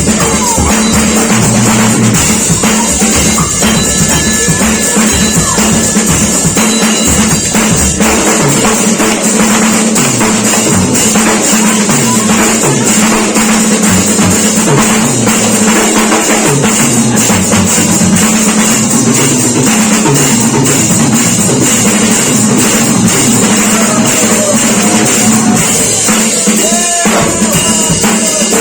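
Drum kit played continuously and loudly, with dense strikes under a steady wash of cymbals, over music with a moving bass line.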